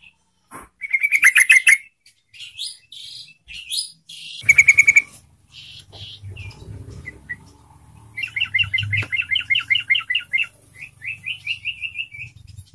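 Yellow-vented bulbul (trucukan) singing in bursts of quick, bubbling repeated notes, with a long fast run of notes about eight seconds in and a shorter one near the end.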